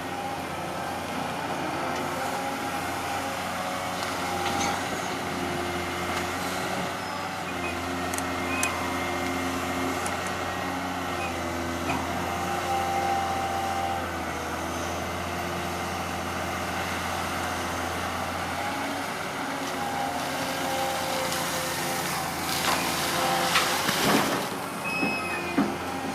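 Cat 320D long-reach excavator running steadily as it works, its diesel engine and hydraulics droning with pitch shifting as the arm moves. A few sharp clatters come near the end.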